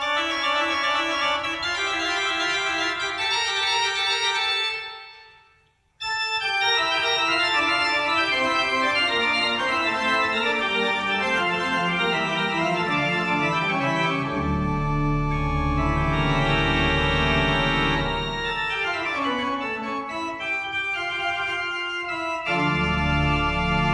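A newly installed church pipe organ playing. The first phrase dies away and a new passage starts abruptly about six seconds in. Deep pedal bass notes join about halfway through and again near the end.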